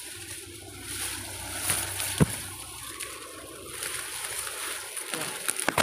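Footsteps pushing through dense dry grass and weeds, the stems rustling and crackling, with a sharp snap about two seconds in and a few more near the end.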